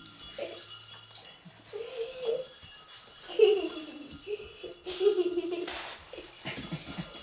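Small jingle bell on a puppy's collar jingling continuously as the puppy is handled and moves about. Several short cries that fall in pitch, from a voice, come in between.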